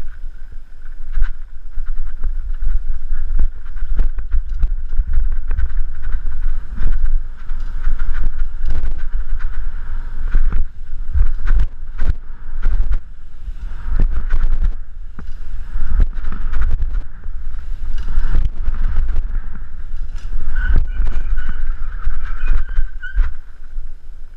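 BMX bike ridden fast over dirt jumps, heard through a GoPro's microphone: heavy wind buffeting with a steady hiss, and frequent knocks and rattles from the bike and tyres hitting the dirt on takeoffs and landings.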